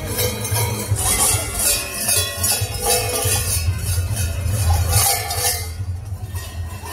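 Large cowbells worn by Krampus and Perchten figures clanging in a steady rhythm as the costumed walkers stride and shake them, stopping shortly before the end.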